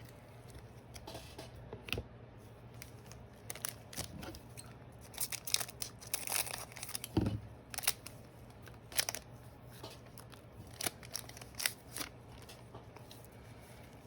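Thick-cardstock trading cards being handled and slid against one another: scattered light clicks and short rustles, with a soft thump about seven seconds in.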